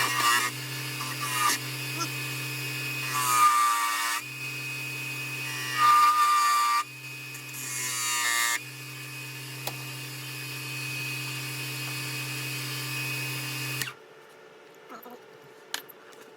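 Wood lathe running with a steady motor hum, briefly dipping a few times, with short high-pitched squeals from something rubbing on the spinning wood. The lathe switches off about fourteen seconds in.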